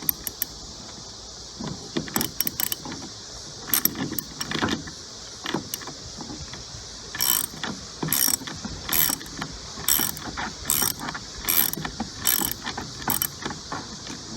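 Socket ratchet working the steering-wheel nut on a lawn tractor: scattered clicks and knocks at first, then a steady run of ratcheting strokes, a little under one a second, through the second half.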